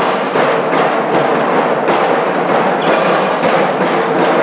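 Sports-hall din during a handball match: a steady wash of crowd noise cut through by many sharp knocks and thuds, percussive like drumming, with a brief high squeak about two seconds in.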